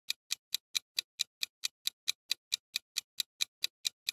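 Countdown-timer ticking sound effect: short, evenly spaced clock ticks, about four and a half a second.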